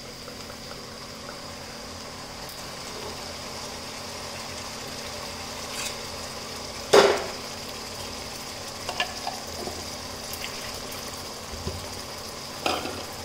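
Tomato, ginger and garlic paste sizzling in hot mustard oil in a kadhai, a steady frying hiss. One sharp knock about seven seconds in, and a few lighter clicks later.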